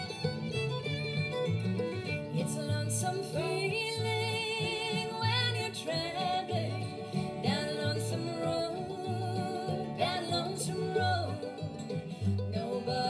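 Bluegrass band playing live: a woman sings lead with vibrato over fiddle, acoustic guitar, mandolin and upright bass keeping a steady beat.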